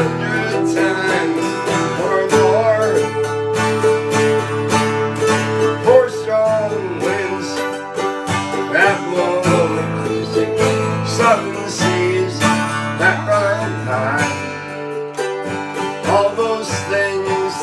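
Acoustic string band playing an instrumental break in a country-folk song, led by picked guitar and other plucked strings.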